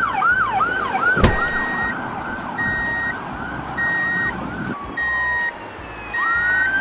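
Electronic emergency-vehicle siren in a fast yelp, sweeping about two and a half times a second, with a steady higher beep sounding for half a second about once a second over it. There is a sharp click a little over a second in. Near the end the fast yelp stops and gives way to a slow falling tone and then a rising wail.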